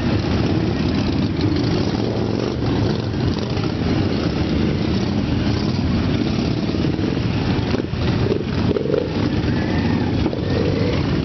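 Dense, steady rumble of many motorcycle engines running at once, a large crowd of bikes idling together.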